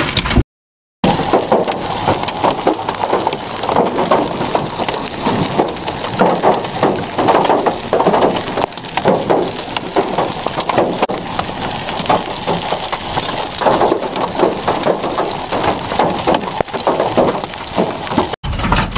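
Heavy hail pelting down: a dense, continuous clatter of countless hailstones striking hard surfaces. A short break under a second in.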